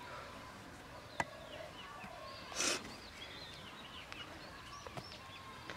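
A hand-held digging bar striking and scraping into hard, dry cracked clay: a sharp knock about a second in, a short gritty scrape near the middle, and a couple of lighter knocks near the end. Small birds chirp throughout in the background.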